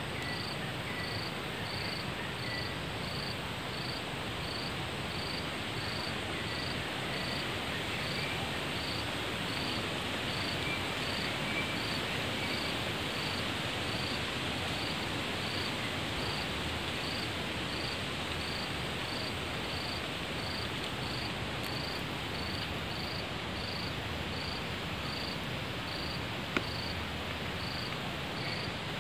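Forest insects chirping: a steady rhythm of short high pulses, about one and a half a second, over a constant insect hiss. A single sharp click comes near the end.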